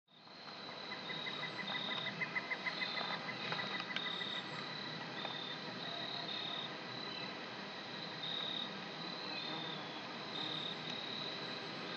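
Crickets chirping: short high trilled phrases repeating steadily, with a quick run of rapid chirps in the first few seconds.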